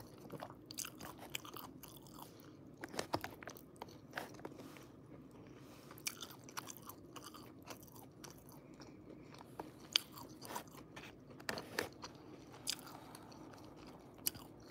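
Close-up chewing and mouth sounds of a person eating creamy pasta with chicken: irregular wet clicks and smacks, some sharper than others.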